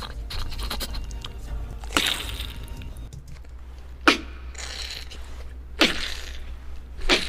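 A run of short, sharp, breathy sound-effect bursts, five of them a second or two apart, over a steady low hum.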